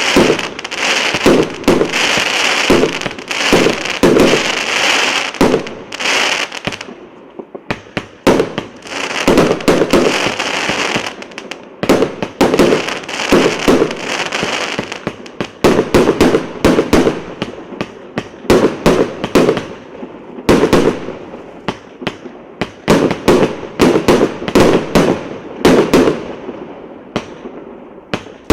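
Firework battery (multi-shot cake) firing: a fast string of launch shots and bursts, several a second, with a few short lulls between volleys.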